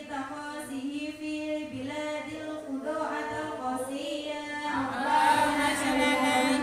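A group of women chanting a religious recitation together in a melodic, sing-song line with long held notes, swelling louder about five seconds in.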